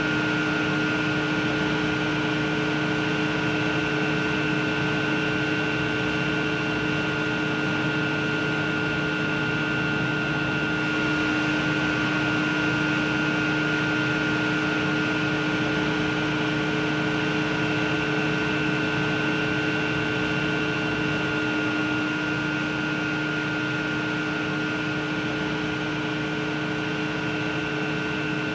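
Horizontal Francis water turbines and their generators running steadily: a constant hum made of several fixed tones over a rushing noise of water and cooling air.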